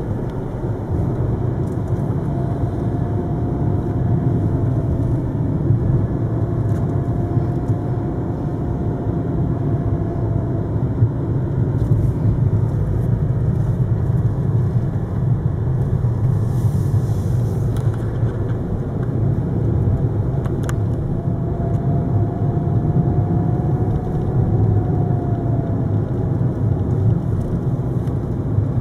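Steady engine and road rumble heard from inside a moving car's cabin, with a faint whine that rises and falls, twice.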